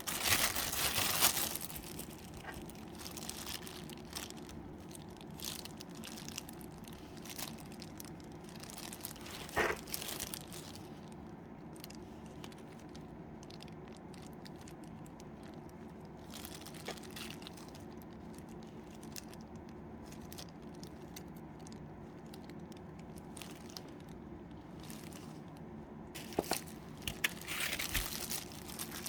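Small hard parts being handled, with clicks and rustling, over a steady low hum; the handling is busiest near the start and near the end.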